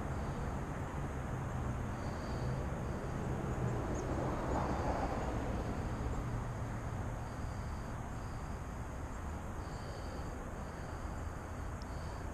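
Outdoor ambience: a steady low rumble with a broad swell of noise, like a passing vehicle, about four to five seconds in, and short high insect chirps repeating on and off throughout.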